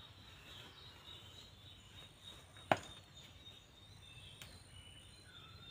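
Faint outdoor ambience of a plantation garden, with thin insect and bird calls, and a single sharp click about two and a half seconds in as vegetables are picked by hand.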